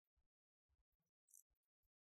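Near silence, with only faint, scattered crackles.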